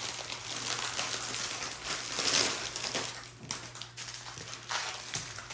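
Plastic bags crinkling and rustling as hands handle a bundle of bagged diamond-painting drills. Loudest about two seconds in, then quieter, with separate short crackles.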